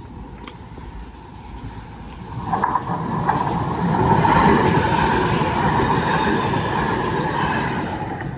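Manchester Metrolink tram passing over a level crossing. It grows louder, with a few sharp clicks of the wheels over the rail joints about two and a half to three seconds in and a steady whine, is loudest around the middle and eases slightly near the end.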